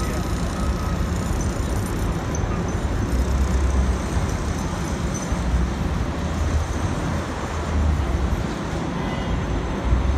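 Steady city traffic noise, with a low rumble that swells several times.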